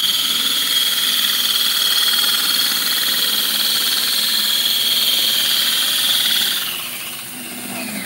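Drill spinning a diamond hole saw that grinds through thin, water-wetted aquarium glass: a steady high-pitched whine over a grinding hiss, winding down about six and a half seconds in.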